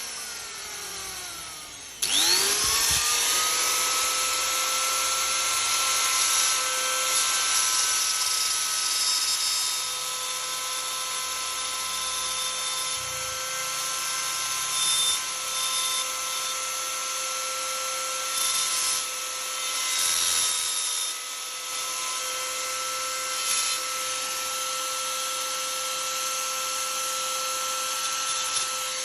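High-speed electric power tool switching on about two seconds in, its whine rising quickly to a steady high pitch over a hiss, then running steadily on wood with a few brief louder swells.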